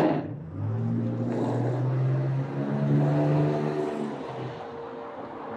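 Car engine pulling away and driving off, the sound fading over the last couple of seconds.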